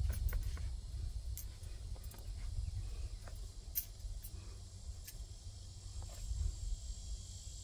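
Quiet background ambience: a steady low rumble under a faint high hiss, with a few soft clicks scattered through.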